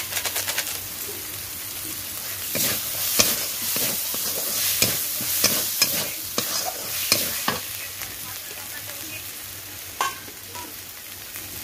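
Metal spatula stirring and scraping tomato-and-spice masala frying in oil in a metal kadai, over a steady sizzle. The spatula clinks and scrapes against the pan many times from about two and a half to seven and a half seconds in, then gives one more knock near the end.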